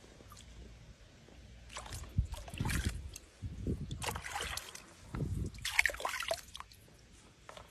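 Water splashing and sloshing in three bursts as a jaguar moves in a pool, the water churning around its chest and front legs.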